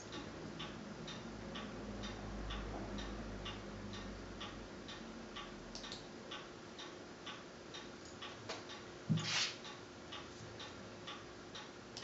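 A clock ticking steadily, about two ticks a second. About nine seconds in, a draughts piece is set down on the wooden board with a single knock, followed by a brief rustle.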